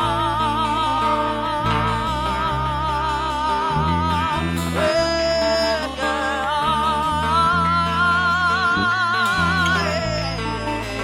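A woman singing a slow, held melody with wide vibrato over instrumental accompaniment of held bass notes that change every second or so.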